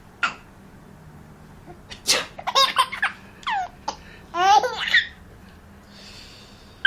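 A woman makes a mock sneeze about two seconds in, and a baby answers with several short bursts of laughter, squealing and giggling.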